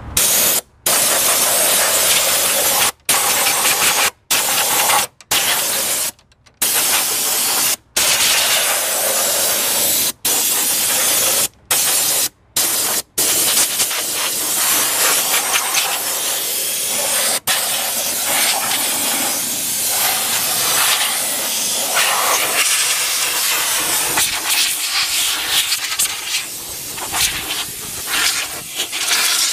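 Compressed-air blow gun blasting air to blow dust out of a car's engine bay: a loud hiss. It stops and restarts briefly about ten times in the first half, then runs almost continuously with a wavering level as the nozzle moves.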